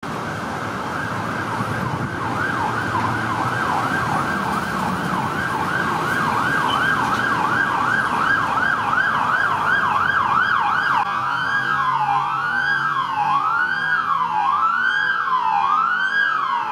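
Emergency vehicle siren in a fast yelp, about three rises and falls a second, growing louder, then switching about eleven seconds in to a slower wail of a little over a second per rise and fall. A low rumble under the yelp drops away at the switch.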